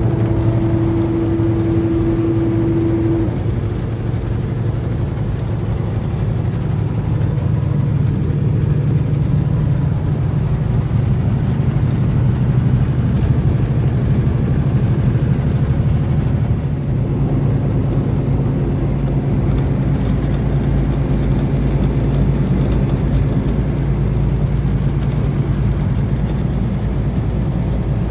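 Truck engine and road noise while driving, a steady low drone, with a brief higher hum over the first three seconds.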